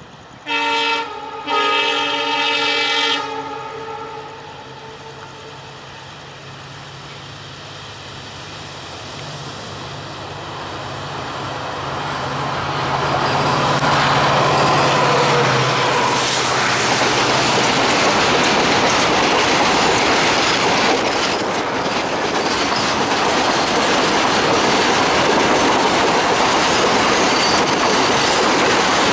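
WDG4 diesel locomotive sounding its multi-tone horn twice, a short blast then a longer one. Its EMD 16-cylinder two-stroke engine drone then grows louder as it approaches and passes. A rake of empty freight wagons follows, rolling by close with steady wheel clatter.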